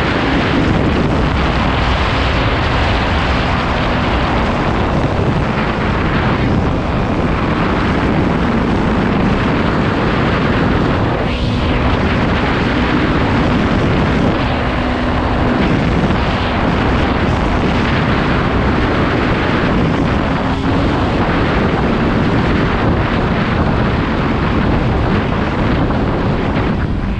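Kawasaki Z250 parallel-twin engine running at a steady cruising speed, mixed with loud wind rushing over the microphone.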